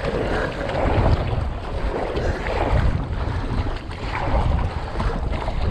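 Strong wind buffeting the microphone, with choppy waves splashing against a playboat kayak's bow and the paddle dipping through the water in a rough rhythm of a stroke every second or two.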